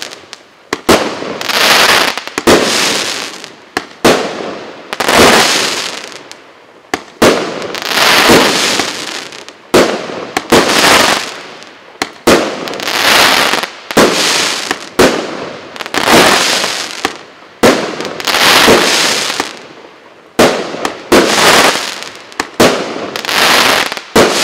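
A 19-shot, 1.1-inch consumer firework cake firing in sequence, about one shot a second at an uneven pace. Each shot is a sharp bang followed by about a second of hissing, crackling burst as the shell breaks into glittering stars.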